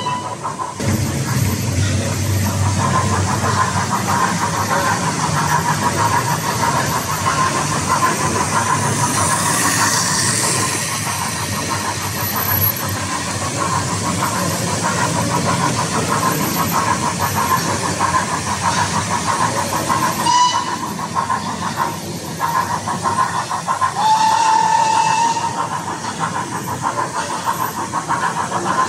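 OO gauge model of an SE&CR D class steam locomotive running with its coaches on model railway track: a steady electric motor whine with wheel and rail noise, and a short high tone near the end.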